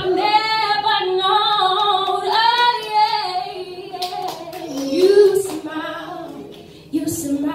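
A woman singing solo into a microphone, holding long notes with a wavering pitch, quieter in the second half.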